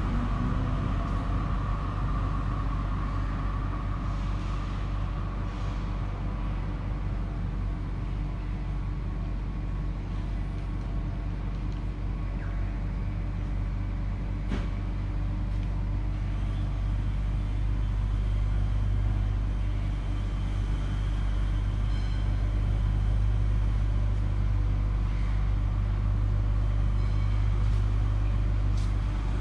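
Z-class tram running, heard from inside the cabin: a steady low rumble with a faint hum, and a single sharp click about halfway through.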